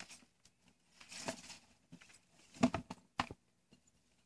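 Light handling noise in a metal bin: a soft scraping rustle about a second in, then two sharp knocks, the first the louder, as a hand sets a garter snake down on the bin floor.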